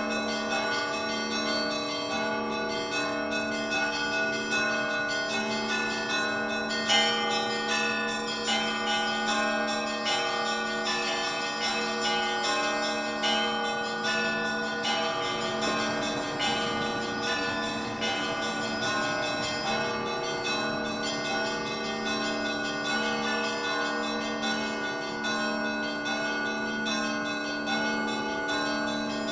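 Orthodox church bells rung together in a continuous peal. A low bell sounds in a steady beat under many overlapping, lighter, higher bells, with one louder strike about seven seconds in.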